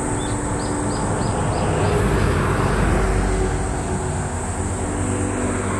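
A low vehicle rumble that swells a couple of seconds in, as a motor vehicle passes, over background music with steady held notes. A quick run of about seven short high chirps comes near the start, and a steady high hiss runs beneath it all.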